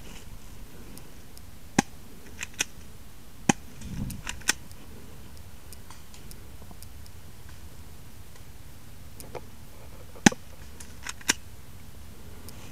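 Scattered airsoft shots: about seven sharp single snaps at irregular intervals, several between two and four and a half seconds in, then two more around ten and eleven seconds in, with a brief low rustle near four seconds.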